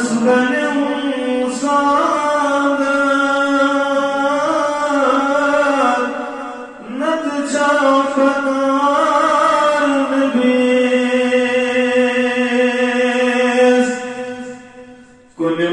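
A man's voice chanting unaccompanied in long melodic phrases, a devotional Islamic chant. A short break comes about seven seconds in; the second phrase settles on one long held note and fades out near the end.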